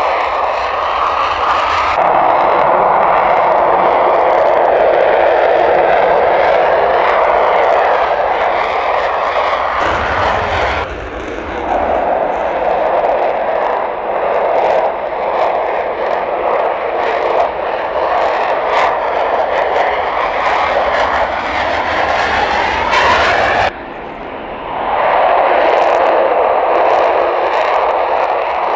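Eurofighter Typhoon jets taking off, their twin turbofan engines running at high power in a loud, steady roar. The roar dips abruptly twice, about eleven seconds in and again near the end, then builds back up as the next jet rolls.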